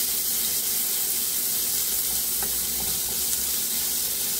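Chopped onion just added to hot oil in a kadhai, sizzling steadily while being stirred with a wooden spatula.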